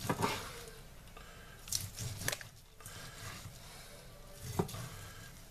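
Kitchen knife slicing through a cooked chicken breast, its blade tapping a plastic cutting board a few times with sharp knocks.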